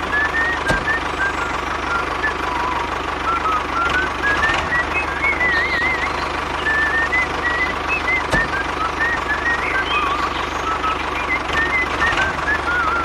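Miniature DIY tractor's motor running steadily, with birds chirping throughout.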